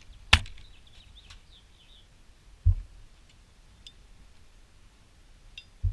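Handling noise from the machined aluminium parts: a sharp click about a third of a second in and a dull thump near the middle. Faint chirping runs in the background.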